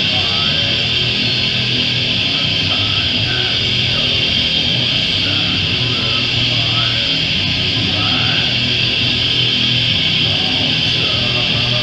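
Doom metal band playing live: heavily distorted electric guitars and bass in a loud, steady, dense wall of sound.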